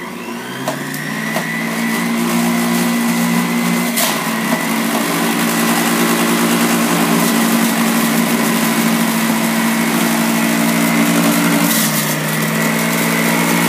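DASH Premium 800-watt juicer's motor switched on at its higher speed, used for hard vegetables such as carrot: it spins up within the first second, then runs loud and steady with a high whine. A short knock comes about four seconds in, and the pitch sags briefly near the end before recovering.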